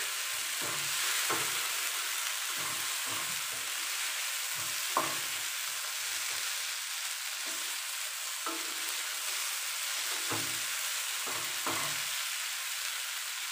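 Chicken pieces sizzling in a little oil in a nonstick frying pan over a turned-up gas flame: the last minutes of stir-frying. A wooden spatula stirs them, scraping and tapping against the pan at irregular intervals over a steady sizzle.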